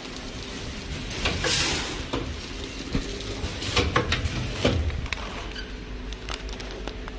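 Vertical form-fill-seal packing machine with a four-head electronic weigher running. Short hissing bursts come a second or two apart, with sharp clicks and knocks as it cycles, over a steady hum.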